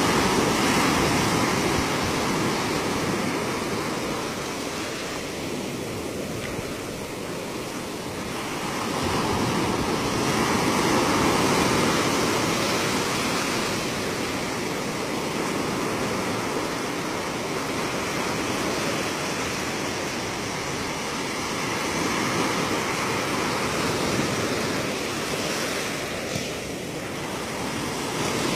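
Ocean surf breaking and washing up a sandy beach, a steady rush of water that swells and eases slowly as the waves come in.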